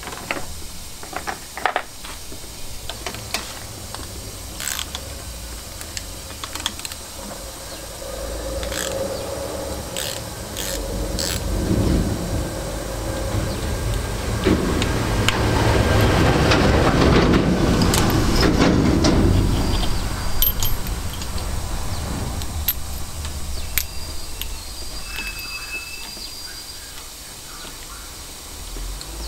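Socket ratchet undoing the 17 mm nuts on the cylinder studs of a Fiat 500 F 499cc engine block: ratchet clicking and sharp metal taps of the socket on the studs. The clicking grows denser and louder through the middle, then thins out near the end.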